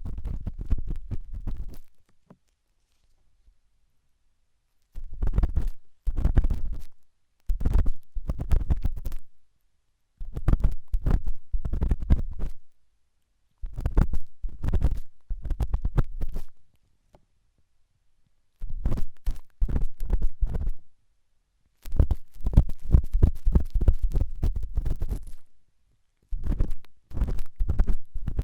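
Ear pick scraping hard in an ear, very close to the microphone: loud scratching and crackling strokes in bursts of one to three seconds, with short pauses between them.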